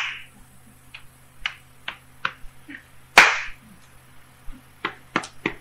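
A rakugo storyteller's mouth sounds as he mimes eating manjū: a string of short lip smacks and clicks, the loudest at the start and about three seconds in.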